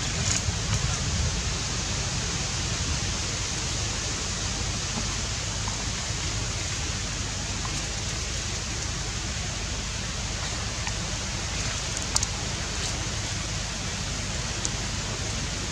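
Steady outdoor background hiss over a low rumble, with a couple of faint clicks about twelve seconds in.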